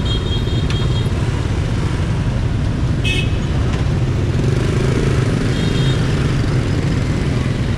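Dense city street traffic, mostly motorbike and scooter engines running in a steady loud rumble, with short horn beeps three times: right at the start, about three seconds in, and near six seconds.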